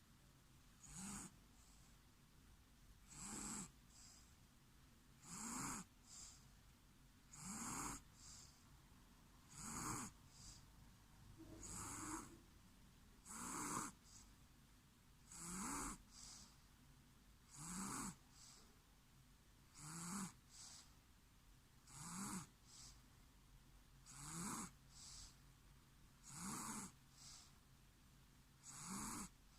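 Snoring in a steady rhythm, about one snore every two seconds, each a short breathy snore that rises slightly in pitch.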